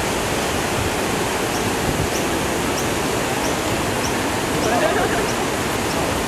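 Floodwater of the North Pine River rushing past the railway bridge: a steady, even rush of water.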